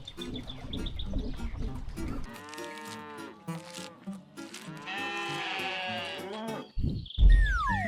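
Cartoon sound effects of cattle mooing: two long, drawn-out moos over light background music, followed near the end by a loud low thud.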